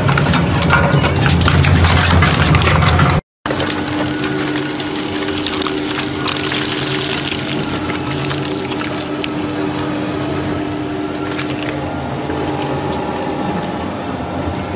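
Industrial twin-shaft shredders running. For the first three seconds one grinds aerosol spray cans, with a heavy low hum and crackling crunches. After a brief break, a shredder hums steadily as it chews through playing cards.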